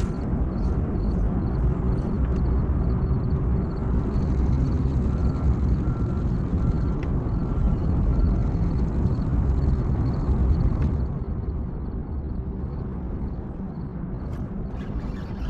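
Steady low rumble of a small boat's motor running under way, mixed with wind and water noise; it drops somewhat about eleven seconds in.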